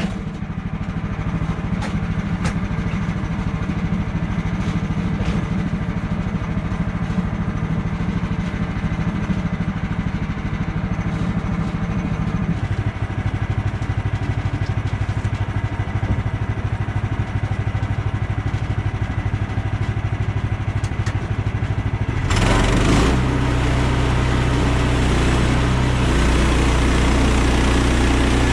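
A small engine running steadily. About 22 seconds in the sound changes abruptly to a louder, deeper engine running.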